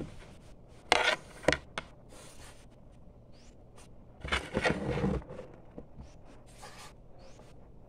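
Handling noise: two sharp clicks about a second in, then a short spell of scraping and rubbing about four to five seconds in.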